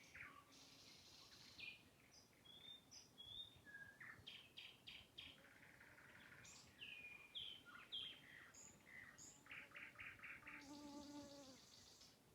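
Nightingale singing faintly in a varied string of phrases: fast rattling trills, clear whistled notes and sharp clicks, one phrase after another with short gaps.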